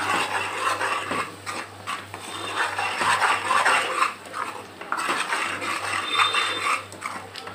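Metal spoon stirring and scraping a thick spice paste around a metal pan, with repeated irregular scrapes against the pan as the masala fries in oil.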